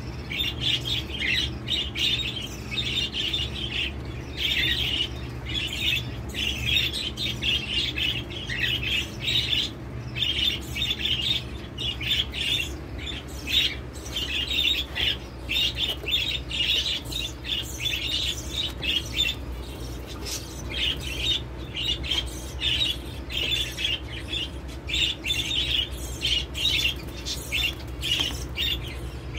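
Canaries chirping and twittering continually over the steady low hum of an electric fan.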